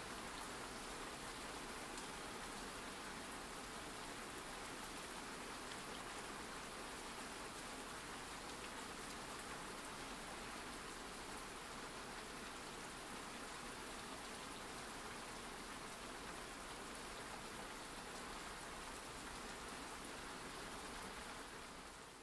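Steady background rain ambience, an even hiss of falling rain that fades out near the end.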